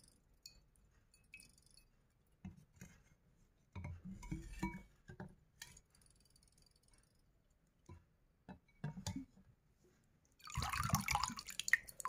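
A terracotta clay money pot (gullak) handled right against a clip-on microphone: scattered clicks and clinks of fingers and the mic on the hard clay, with short scratchy rubbing bursts about four and nine seconds in. Near the end comes the loudest part, a dense wet splashing as the pot is worked in a bowl of water.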